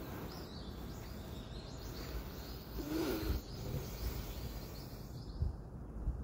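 Outdoor street ambience: a steady low rumble with small birds chirping high and thin. About three seconds in there is a brief, louder rush of noise.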